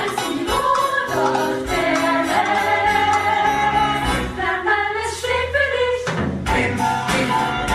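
Upbeat show-tune music with a choir of voices singing held notes over a full band.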